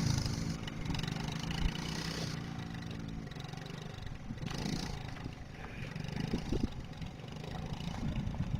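Small youth ATV engine running with a steady note for about three seconds, then fainter and rougher.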